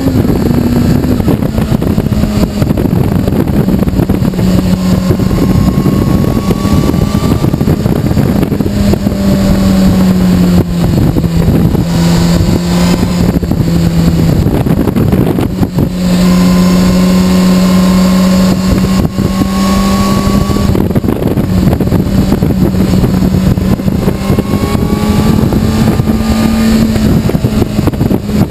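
Honda CBR600RR's inline-four engine running at cruising speed, ridden under fairly steady throttle, over a constant rush of wind. The engine note holds steady with small rises and falls, dropping a little about ten seconds in and picking up again around sixteen seconds in.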